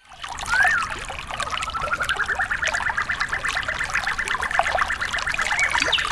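Trickling water with a bird singing over it: a short rising call about half a second in, then a long, fast trill of evenly repeated notes that slowly climbs in pitch.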